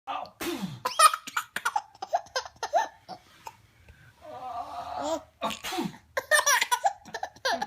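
A man sneezing, once about half a second in and again about five and a half seconds in, after a drawn-out build-up. A baby laughs in quick, high-pitched bursts after each sneeze.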